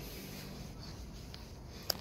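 Faint scratchy rubbing of a hand stroking a cat's head and fur, with one sharp click near the end.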